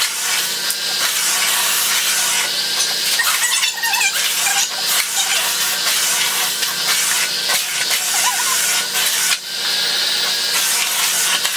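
Miele Complete C3 canister vacuum running, a steady loud rush of suction over a motor hum, as its floor head is pushed back and forth over a rug picking up sprinkled carpet powder, with the head rubbing on each stroke.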